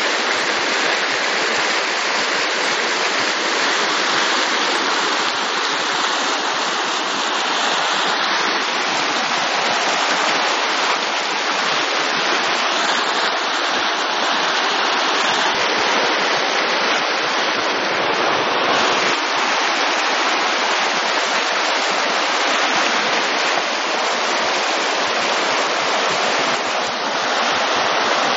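Steady, unbroken rush of fast-flowing water, a river running high with storm floodwater from Tropical Storm Ingrid.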